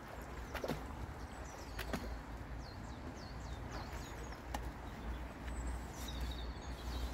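Small birds singing, a run of short high falling chirps about halfway through and again near the end, over a low wind rumble, with a few sharp clicks.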